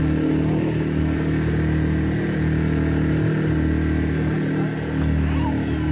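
A small open boat's engine running steadily while under way.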